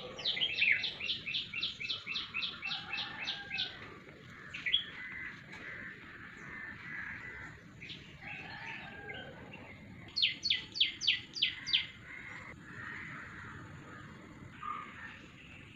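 Birds calling outdoors: one bird gives a quick run of sharp, falling notes, about four a second, and repeats a shorter run about ten seconds in, while other birds chirp softly in between.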